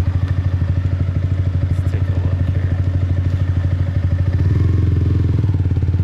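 Motorbike engine running while being ridden, a low rumble with a rapid, even pulse that gets fuller and starts to rise in pitch about four and a half seconds in as the bike picks up speed. Wind buffets the microphone.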